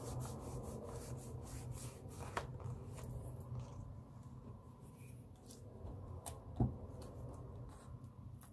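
Paper rustling and rubbing as hands handle and press down cut-out paper pieces, with scattered light ticks and one soft thump about two-thirds of the way through, over a steady low hum.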